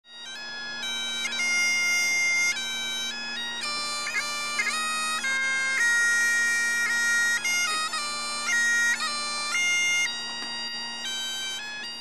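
Bagpipe music: a melody moving from note to note over steady drones, with quick grace-note flourishes.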